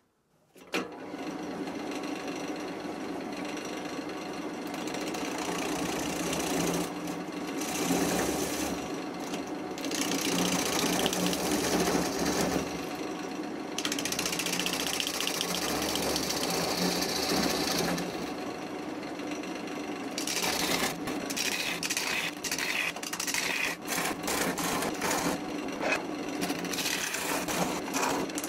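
Wood lathe starting up, then a bowl gouge cutting a spinning, irregular lime (linden) crotch blank: a steady motor hum under a scraping, shaving noise. In the last third the cutting turns choppy, with rapid ticks as the gouge meets the uneven blank.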